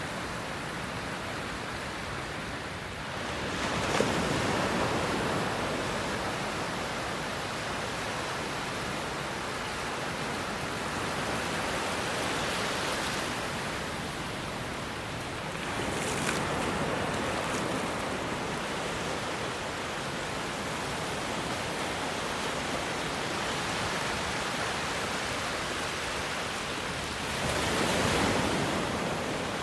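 Ocean waves breaking and washing on a shore as a steady rush of surf, swelling louder about 4 seconds in, again around 16 seconds and near the end.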